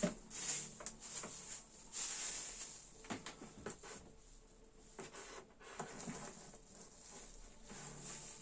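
Plastic bags rustling, with scattered light knocks and clicks and short high hisses, as a bagged power tool is handled and set into the organizer box.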